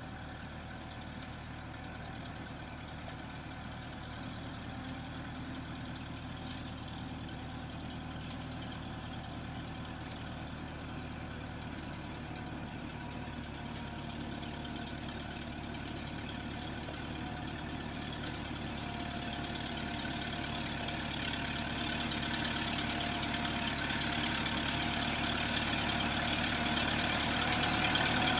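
Vintage tractor engine running steadily as it pulls a reaper-binder through standing grain, growing steadily louder as it approaches.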